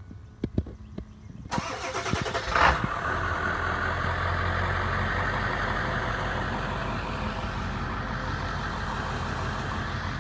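A few clicks, then a car engine starting: it cranks about a second and a half in, catches with a brief surge, and settles into a steady run.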